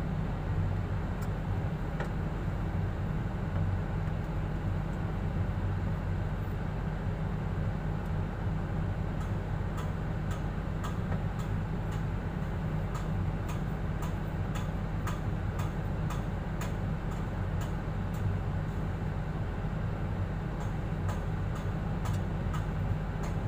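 Sharp metallic clicks, roughly two a second, begin about nine seconds in as workers work the wire mesh panels of a fence loose, over a steady low rumble.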